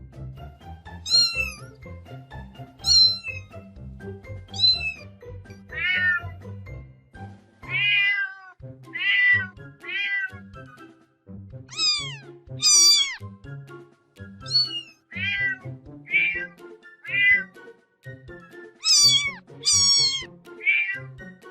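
Domestic cat meowing again and again: about sixteen short meows, each falling in pitch, some high and thin, with background music underneath.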